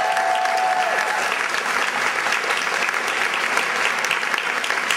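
Audience applauding with dense, steady clapping; a held sung note from the singers fades out about a second in.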